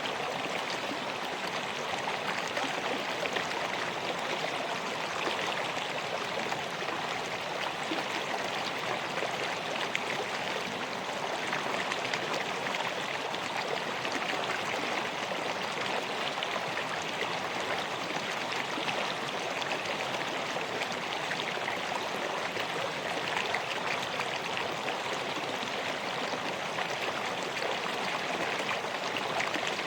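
River water flowing steadily, a continuous rushing and babbling.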